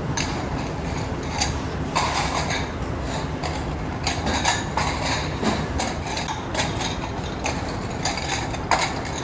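Stacks of glazed ceramic bowls clinking and knocking together as they are lifted out of a wheelbarrow and set down, with irregular sharp clinks over a steady low rumble.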